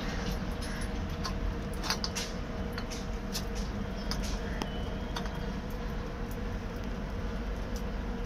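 Steady low rumble and hum of idling railway machinery under a stationary train, with faint scattered clicks and squeaks.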